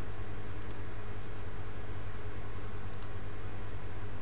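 Two computer mouse clicks, each a quick double tick of press and release, just under a second in and about three seconds in, over a steady low electrical hum and hiss.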